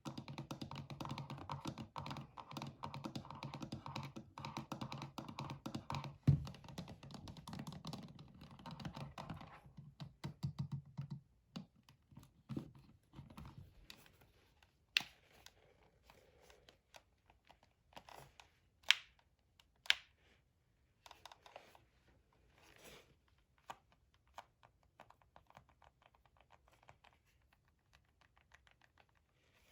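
Rapid, continuous typing on a gaming keyboard for about the first ten seconds, then slower, scattered key presses and clicks, with a few sharper single clicks around the middle.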